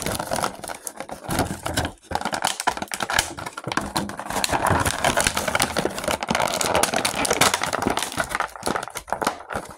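Action figure packaging being handled and pulled apart, a dense run of crinkling, rustling and quick clicking as the figure is worked loose from the box.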